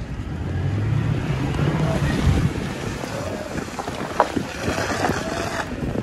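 Toyota Tacoma's engine running as the truck drives up a snowy trail, a steady low hum in the first couple of seconds, with wind rushing over the outside-mounted microphone and a few knocks near the middle.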